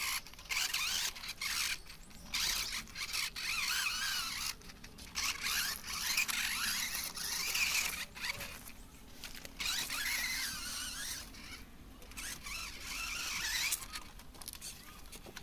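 Electric motor and gearbox of a toy RC monster truck whining in repeated throttle bursts, the high pitch wavering up and down as it struggles over loose ash and dirt.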